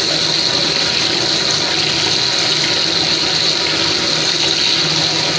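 Bathtub tap running steadily, water pouring into a filling tub from a weak, low-pressure supply.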